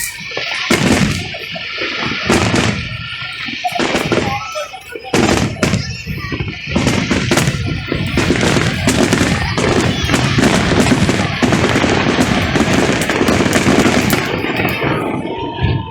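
Fireworks going off in quick succession: many overlapping bangs and crackles, with hardly a pause.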